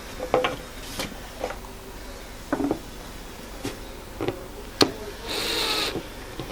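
Wooden stool parts and clips being handled, with a scatter of light knocks and clicks. A brief half-second run of a power drill comes near the end.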